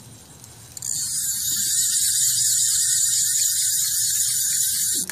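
Fishing reel's drag buzzing as the kite pulls line off the spool: a loud, steady, high-pitched whir that starts abruptly about a second in and stops just before the end.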